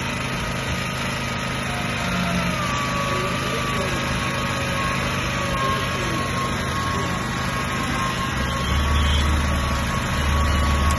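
A 2 kW petrol generator running steadily, powering an electric sugarcane juice machine as cane stalks are fed through its crushing rollers. A deeper hum swells in near the end.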